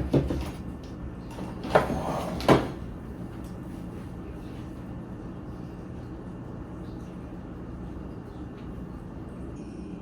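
Kitchen handling noises: a sharp knock at the start, then two more clatters about two seconds in, over a steady low hum.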